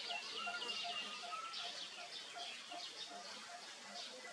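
Several wild birds calling: sharp chirps that drop quickly in pitch, repeated through the clip, over a steady run of short, lower notes, nearly three a second, with a brief rising-and-falling whistle about a second in.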